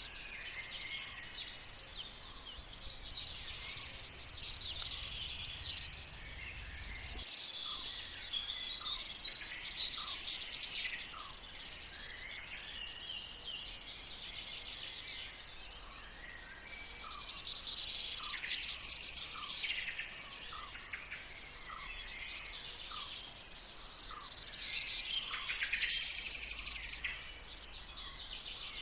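Several birds singing and calling together in a morning chorus, a continuous stream of overlapping chirps and trills.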